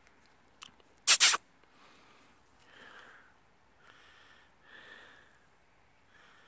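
Lhasa Apso puppies play-fighting, with a few soft breathy snuffles and huffs. About a second in there is a short, loud double burst of noise on the microphone.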